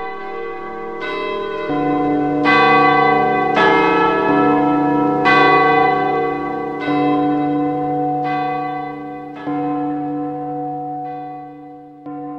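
Bells ringing a slow sequence of notes at different pitches, a new strike roughly every second, each note ringing on and overlapping the next, getting softer in the second half.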